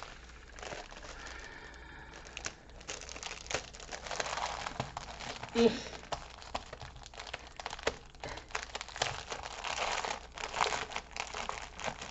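Clear plastic packaging bag crinkling and crackling as it is handled and pressed flat, a steady stream of small irregular crackles.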